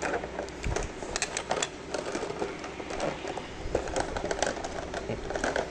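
Irregular clicks, crinkles and rustles of a toy's cardboard and plastic packaging being handled and opened.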